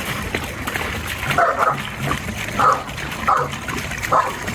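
Dog barking in several short, separate barks and yips, five or so spread over a few seconds.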